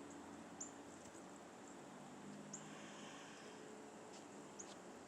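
Dark-eyed juncos giving faint, high, short chip calls, scattered singly every second or so.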